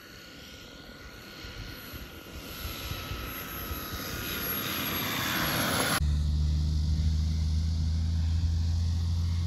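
Radio-controlled propeller model airplane landing, its motor-and-propeller whine growing louder as it comes in, with the pitch sliding slightly lower. About six seconds in, the sound cuts abruptly to a loud, steady low drone.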